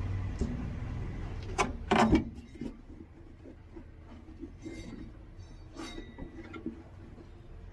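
Sharp metallic knocks about two seconds in, then scattered light clinks and rubbing: tools and metal parts being handled while a new air bellows (air spring) is fitted to a bus's suspension mount. A low rumble fades out over the first two seconds.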